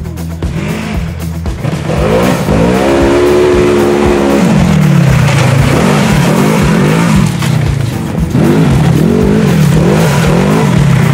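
Sport side-by-side UTV engine revving hard: the pitch climbs and holds high for a couple of seconds, drops about four seconds in, then rises and falls in a run of quick repeated revs as the throttle is worked.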